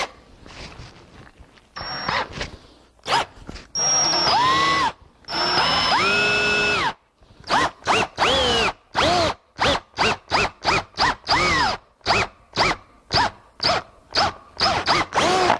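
Drill driving a half-inch tenon cutter into the end of a wooden stretcher, cutting a round tenon. The motor whirs up in two longer runs and then in many short trigger pulses, about two a second, through the second half.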